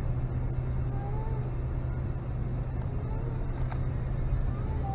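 Steady low rumble of engine and road noise inside the cab of a 2013 Ram 1500 pickup on the move, with several faint cat meows from the back seat.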